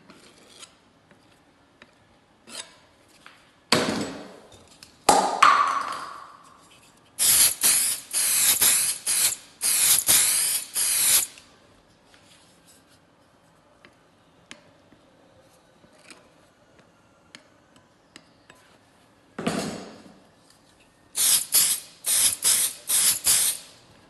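Hand strokes rasping back and forth across the laminate worktop edge, about two a second, in two runs. A couple of knocks come a few seconds in, before the first run.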